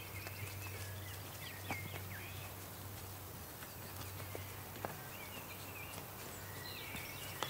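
Horses walking on grass, with a few scattered hoof knocks, and small birds chirping.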